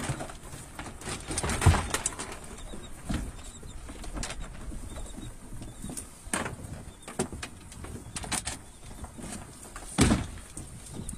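Gill net being hauled by hand over the side of a small fishing boat: wet netting swishing and splashing water, with irregular knocks against the hull, the loudest about two seconds in and again near the end.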